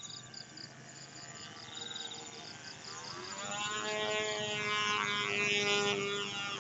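Model airplane's small AP Hornet 0.15 glow engine buzzing at a steady pitch, growing louder from about halfway through as the plane comes in on its landing approach. Crickets chirp rapidly throughout.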